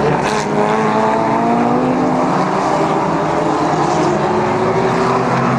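Several historic racing cars' engines running hard together, their overlapping notes rising and falling in pitch as the cars accelerate along the circuit.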